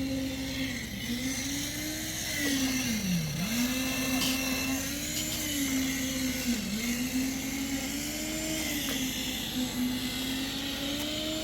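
An engine running steadily, its pitch sagging and recovering several times as load comes on, the deepest sag about three seconds in.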